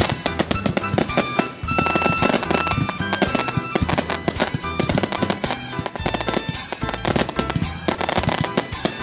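Fireworks going off in rapid, dense bangs and crackles, with music playing under them.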